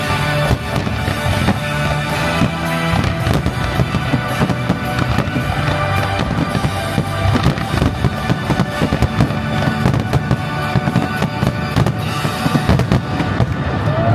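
Fireworks going off in a dense, continuous barrage of bangs and crackles, over the show's music soundtrack.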